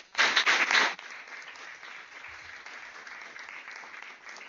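An audience applauding at the close of a lecture, a steady patter of many hands. A louder, closer burst of sound in the first second stops about a second in.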